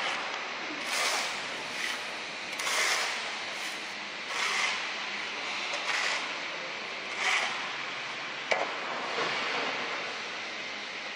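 A rail transfer cart running along a steel track set into a concrete floor: a steady hiss with a swell of noise every second or so, and a single sharp click about eight and a half seconds in.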